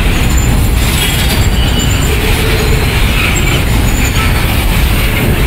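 Goods train of tank wagons rolling past on the rails, a steady loud rumble with faint high-pitched squeals now and then.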